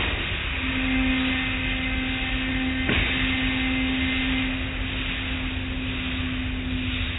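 Automatic car wash heard from inside the car: a steady rush of water spray and rotating cloth brushes over the body and glass, with a steady hum that starts about half a second in and a brief knock about three seconds in.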